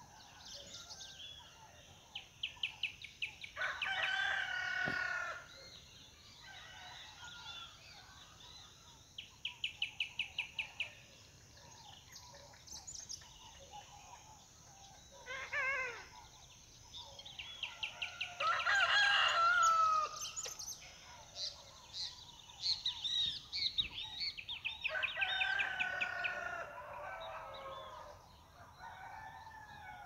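A rooster crowing about four times, each crow lasting a second or two. Between the crows come short runs of rapid, evenly spaced chirps from other birds.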